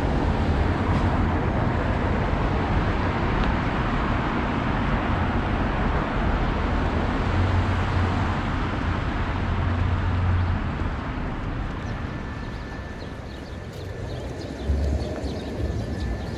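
City street traffic: a steady rush of cars passing on the avenue, easing off a little after about twelve seconds, with a short bump about fifteen seconds in.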